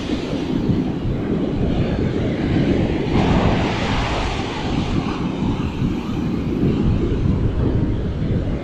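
Strong onshore wind buffeting the microphone in a steady low rumble, over breaking surf; a louder rushing hiss swells about three seconds in and fades over the next two seconds.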